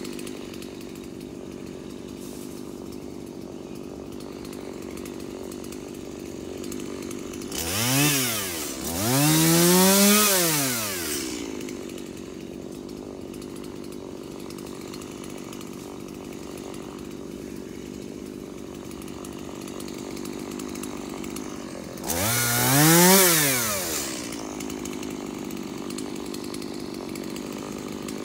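Gas chainsaw idling steadily, revved up and back down three times: a short blip and then a longer rev about eight to eleven seconds in, and another rev about twenty-three seconds in.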